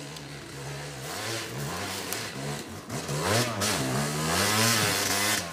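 Yamaha YZ250 two-stroke dirt bike engine revving up and down as the rider blips and works the throttle on a steep climb. It gets much louder about three seconds in as the bike comes up the slope under load.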